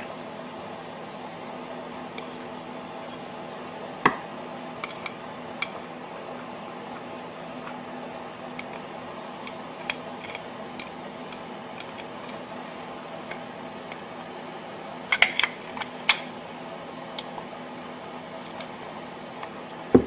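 Small metal parts clicking and clinking as screws are started with a screwdriver in an aluminium engine valve cover, a few isolated taps with a quick cluster about fifteen seconds in, over a steady background hum.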